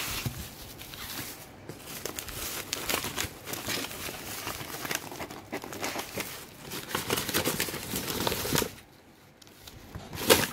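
Shredded plastic-like packing strips crinkling and crackling as a cat noses into the pile, in many small irregular crackles. It goes quieter about nine seconds in, then gives one sharp, loud crackle near the end.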